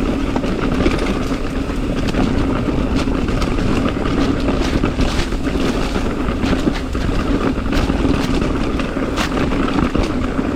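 Mountain bike descending a rocky trail: wind rushing over the camera microphone, tyres rolling over rock, and the bike rattling with frequent sharp knocks, over a steady hum.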